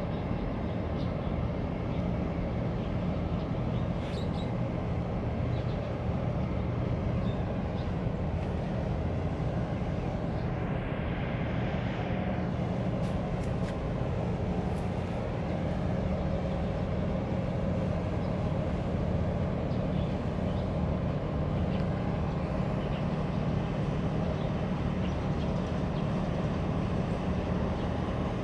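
Steady low diesel drone of ship engines from a large container ship and its escort tug passing slowly close by. A brief hiss swells and fades about ten to twelve seconds in.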